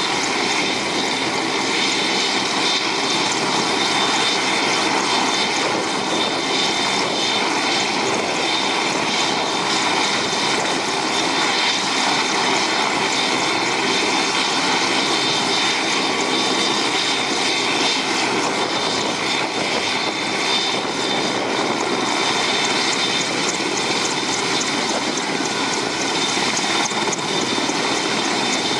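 AgustaWestland Merlin helicopter's three turboshaft engines and rotors running steadily: a high turbine whine over a broad rush of noise.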